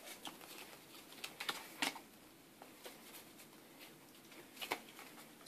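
Faint, scattered light clicks and taps of Yu-Gi-Oh trading cards being handled and laid on a playmat, the sharpest tap near the end.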